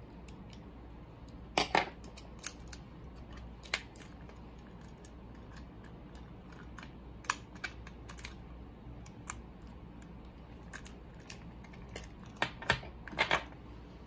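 Hard plastic clicks and taps from handling a phone display stand's clamp holder and fitting a phone into its plastic clamps, coming in irregular clusters. The loudest clicks are about a second and a half in and again near the end.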